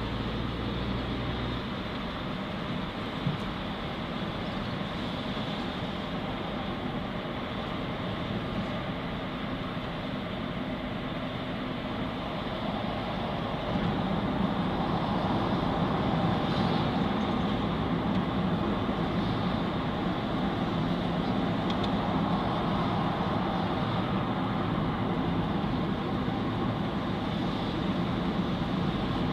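Steady road and engine noise heard from inside a moving car, a continuous rumble that grows somewhat louder about halfway through.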